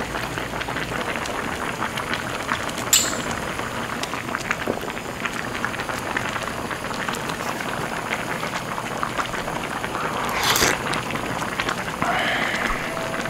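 Spicy rockfish stew (maeuntang) boiling in a wide pan: a dense, steady crackle of popping bubbles, with a sharp click about three seconds in and a short louder burst about ten seconds in.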